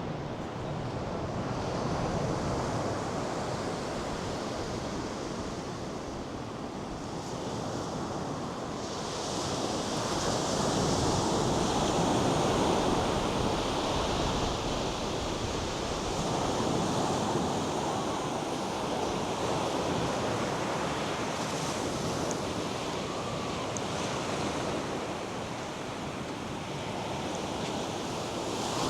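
North Sea surf breaking and washing up a sandy beach: a continuous rush of waves that swells louder around the middle and eases toward the end.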